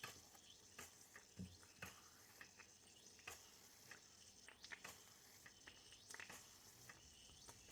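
Faint, irregular clicks and ticks from a small Gaselan DM2 toy steam engine trying to start on low steam pressure, over a light steady hiss of escaping steam.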